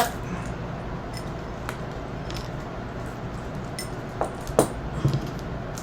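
A few light clicks and taps from a tarot deck being handled as one card is drawn, over a steady low hum.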